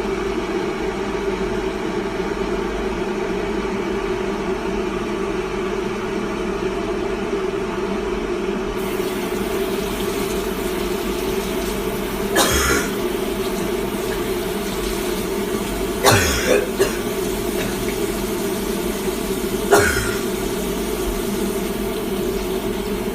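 A steady low hum throughout, broken by three short, sharp sounds about twelve, sixteen and twenty seconds in.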